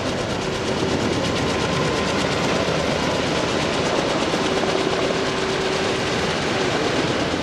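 Kaman K-MAX helicopter with intermeshing twin rotors flying overhead, its rotor blades beating in a rapid, steady chop under the engine noise.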